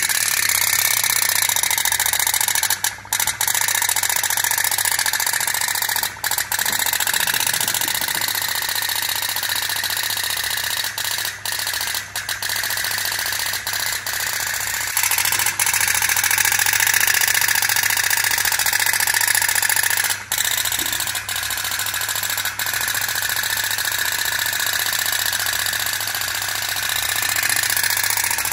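Toy boats running in a tray of water: the rapid metallic putt-putt rattle of a candle-heated tin pop-pop steam boat, mixed with a small battery-driven DC motor in a toy boat. The sound is steady, with a few brief breaks.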